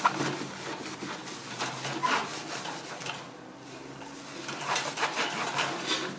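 Microfiber cloth wiping against the wire mesh of a fan grille, in irregular scratchy strokes that ease off for a moment about three seconds in, then pick up again.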